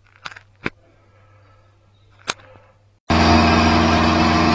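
A few sharp clicks, then about three seconds in the small 90-watt motor of an Emco Unimat SL lathe starts up abruptly and runs steadily, spinning a brass bar in the chuck.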